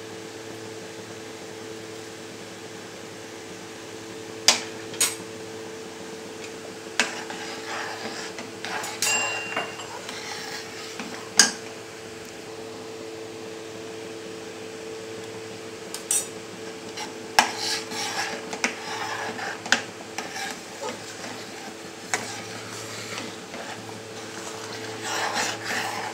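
Metal spoon stirring thick payasam in a metal pan, with several sharp clinks as it knocks against the pan, over a steady low hum.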